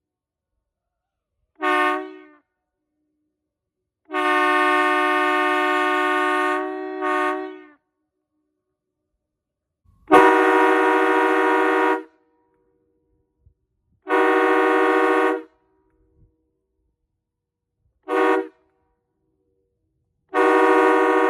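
Air horns blown in a series of about seven blasts, some short toots and some held two to three seconds. Each blast sounds several steady tones at once and cuts off cleanly.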